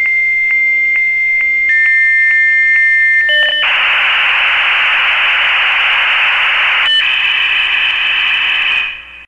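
Dial-up modem handshake. A high steady answer tone is broken about twice a second, and a lower tone joins it. A loud rushing hiss follows for about three seconds, then a pair of steady high tones until it cuts off near the end.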